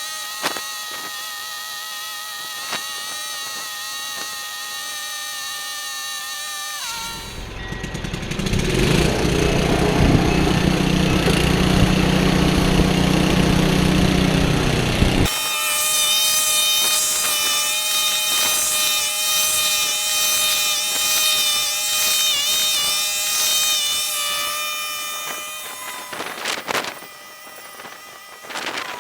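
Five-horsepower Tecumseh Snow King engine of a 1976 Ariens Sno-Throw snowblower running steadily at a held speed. About a quarter of the way through, a loud low noise joins it for several seconds, then drops away. The sound falls off near the end.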